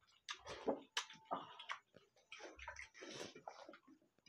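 Water sloshing and gulped from a plastic bottle, mixed with wet squelches and irregular clicks from rice and curry being mixed by hand on steel plates.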